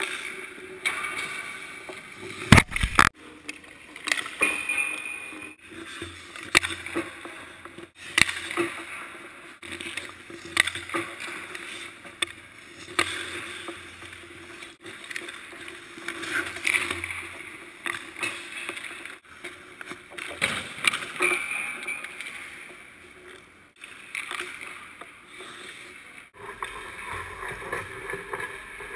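Hockey skate blades scraping and carving across the ice, broken by sharp cracks of sticks hitting pucks. The loudest is a pair of cracks about three seconds in.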